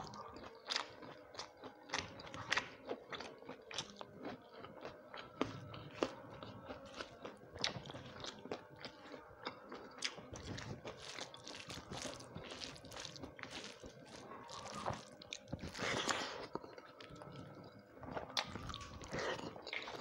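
Close-up mouth sounds of a person eating a rice meal with fried vegetables and salad by hand: rapid, irregular crunching bites and wet chewing, with a longer, louder noise about three-quarters of the way through.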